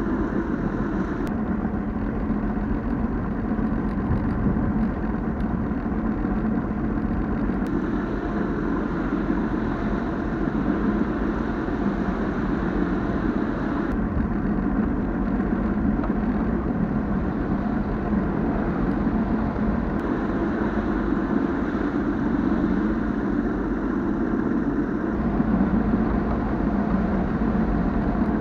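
Bass boat's outboard engine running steadily at low speed.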